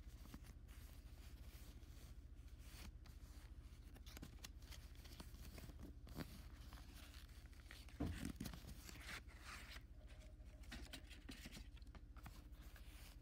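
Faint rustling and scraping of a cardboard coin-set box and its sleeve being handled, with one louder knock about eight seconds in.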